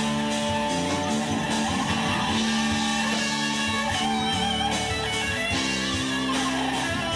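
Live rock band playing at full volume: electric guitars to the fore over bass and a drum kit.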